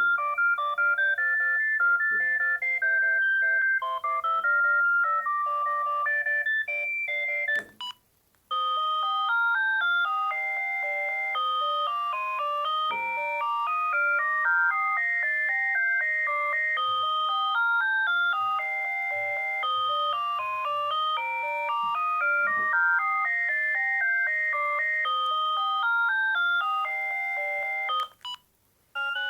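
Panasonic EB-GD93 mobile phone playing its built-in ringtones through its small speaker, one electronic tune after another. The first tune stops about eight seconds in with a click and a second of silence, then a longer tune plays until a short break just before the end, when the next one begins.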